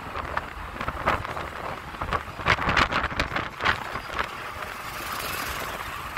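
Road traffic heard from inside a moving vehicle: steady road noise with frequent short clicks and knocks, and a large lorry passing close alongside.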